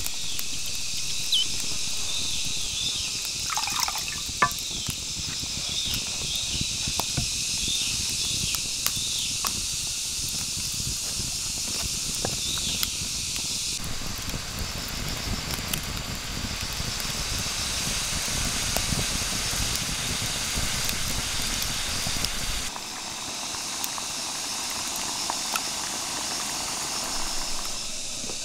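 Wood campfire crackling and burning under a pan, over a steady high insect drone, with a run of short falling bird chirps in the first half. About halfway through, the fire's noise grows fuller and lower, then thins back to crackles over the insect drone near the end.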